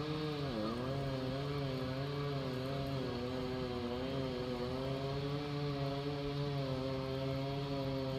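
A boat motor running with a steady hum whose pitch wavers, dipping briefly about half a second in.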